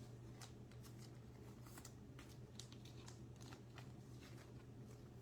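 Faint, scattered clicks and flicks of baseball trading cards being handled and slid past one another, over a low steady hum.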